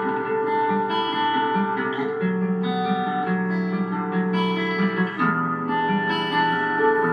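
Music: an instrumental passage of a song, led by acoustic guitar strumming sustained chords. The chords change about two seconds in and again about five seconds in.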